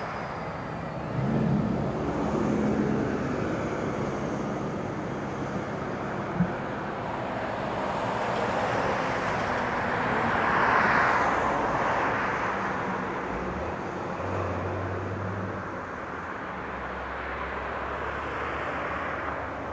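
Helicopter flying over: a steady engine and rotor noise that swells to its loudest about eleven seconds in, then eases. There is one sharp click about six seconds in.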